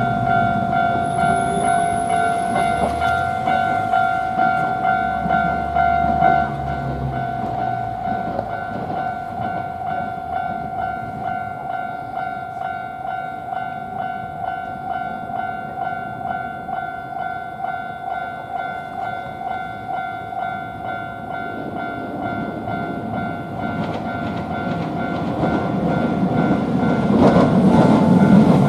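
Japanese level-crossing warning bell ringing its repeating "kan-kan" tone. A tram runs through the crossing in the first six seconds or so, and another tram approaches, growing louder near the end.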